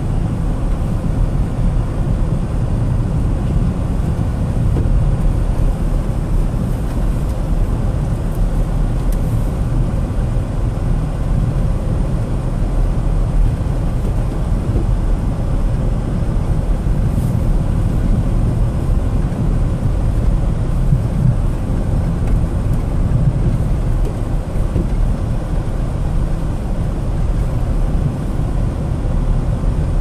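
Steady low rumble inside a car driving along a snow-covered, unplowed road: engine and tyres running over packed snow, with no change in pace.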